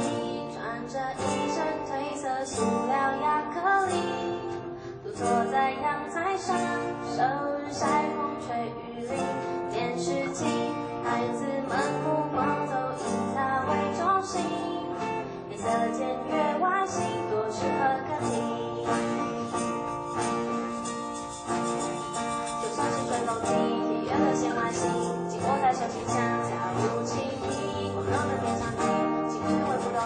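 Live acoustic band: two acoustic guitars strummed, with a cajon and a shaker keeping a steady beat and a female voice singing.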